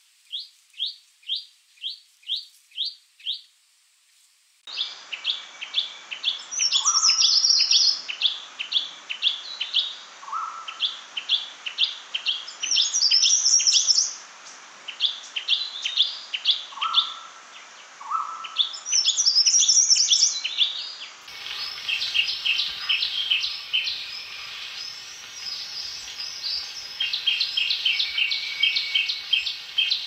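Shrike-babbler song from several spliced recordings. First comes a run of about eight short rising whistled notes, two a second. Then there are fast repeated clipped notes with higher trilled phrases over them, and near the end a busier stream of quick chattering notes.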